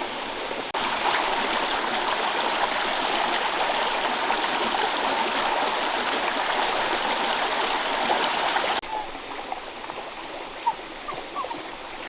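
Steady rush of running water, like a stream. It jumps louder abruptly just under a second in and drops back just as suddenly a few seconds before the end.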